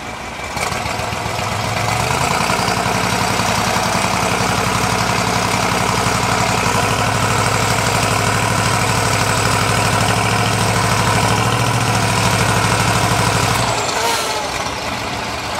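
Heavy off-road truck's diesel engine working hard while it is stuck in sand. It revs up about half a second in, runs steady and strong for about thirteen seconds, then drops back.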